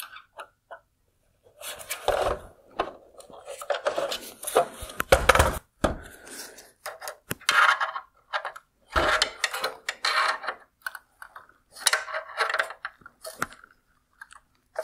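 Irregular clicking, scraping and clattering of plastic parts as a metal pick tool pries the bezel clips off a headlight projector unit and the unit is turned and handled, with a few heavier knocks, the strongest about five seconds in.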